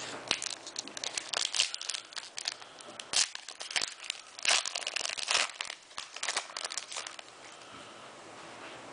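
Foil Pokémon booster pack wrapper being torn open and crinkled by hand, a rapid run of sharp crackles that stops about seven seconds in.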